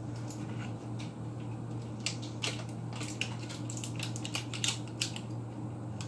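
Scattered light clicks and knocks of kitchen items being handled and moved about while someone rummages through cupboards, mostly from about two seconds in, over a steady low hum.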